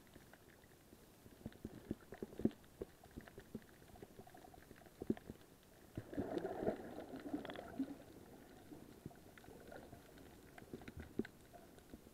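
Muffled underwater sound recorded through an SJCAM4000 action camera's waterproof housing: scattered clicks and knocks, with a louder rushing burst about six seconds in that lasts around two seconds.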